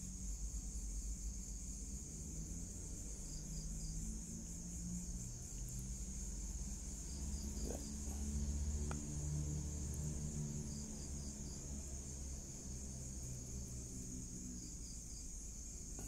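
Crickets chirring in a steady, high-pitched night chorus, with a low rumble underneath.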